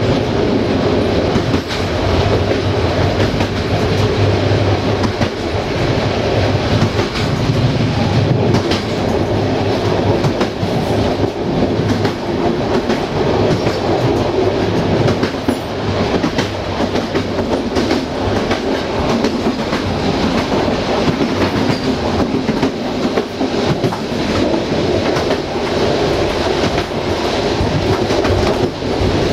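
Passenger train carriage running along the track: a steady rumble of wheels on rails with scattered clicks of clickety-clack.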